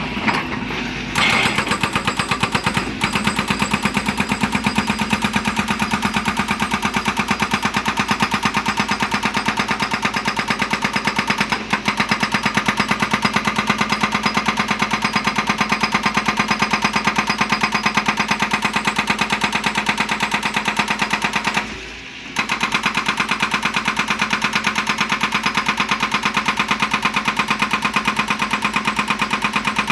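Excavator's hydraulic breaker hammering stone, with rapid, even blows over the running diesel engine. The hammering starts about a second in and pauses briefly about 22 seconds in before resuming.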